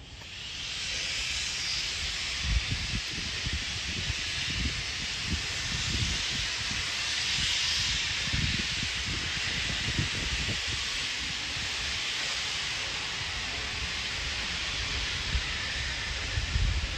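Steam locomotive releasing steam: a loud, steady hiss that comes on at the start and holds throughout, with irregular low thumps underneath.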